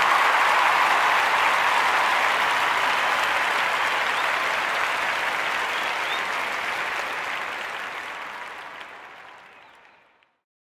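Crowd applause, a steady even clapping that fades out over the last few seconds to silence.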